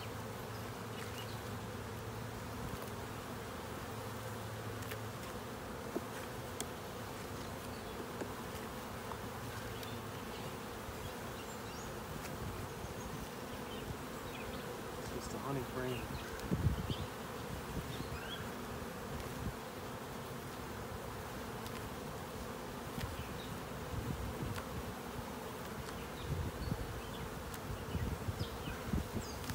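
Honey bees buzzing steadily in a hum around an opened hive full of bees. A few low bumps and knocks stand out over it, the loudest about 17 seconds in and more near the end.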